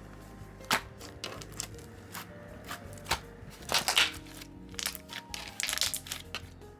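Slime being squished and poked by hand, making irregular sharp clicks and crackling pops, with a cluster of louder pops about four seconds in. Soft background music plays underneath.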